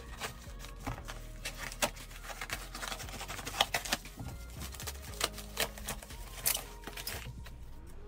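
Padded paper mailer being torn open and card-and-plastic packaging pulled out, a steady run of crinkling and rustling with many short sharp crackles.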